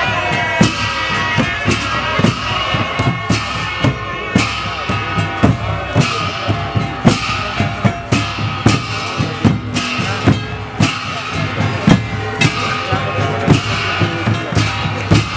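Traditional Kinnauri folk dance music played live: drums beat a steady, even rhythm under a wind instrument carrying the melody.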